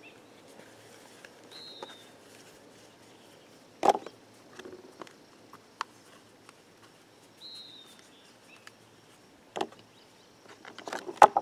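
Dishes being handled on a wooden table while wiped dry with a paper towel: one sharp knock about four seconds in as a bowl is set down, and a few lighter knocks near the end. A bird gives a short falling chirp twice in the quiet background.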